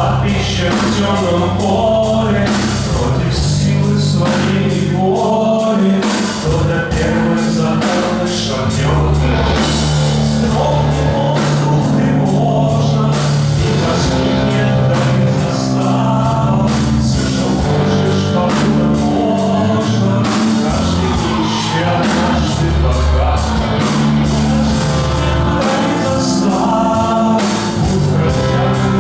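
Rock song with singing over a steady drum beat and a distorted bass and guitar backing.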